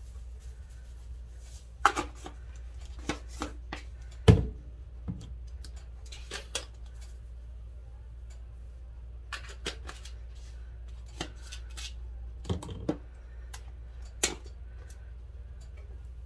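Seasoning bottles being shaken, tapped and handled over a bowl of raw chicken: irregular light clicks and knocks, with one louder thump about four seconds in, over a steady low hum.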